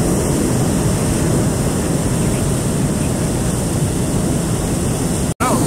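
Hot-air balloon's propane burner firing: a steady, loud rushing roar that holds at one level and cuts off suddenly a little before the end.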